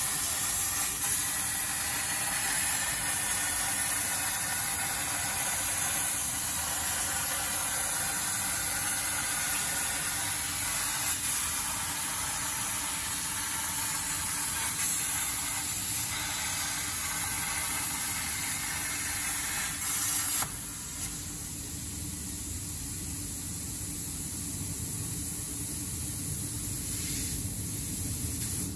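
AMMA Fusion CNC plasma torch cutting 4 mm Corten steel plate: a steady hiss of the arc and air jet. About two-thirds of the way in it drops to a quieter, duller hiss as the cut ends.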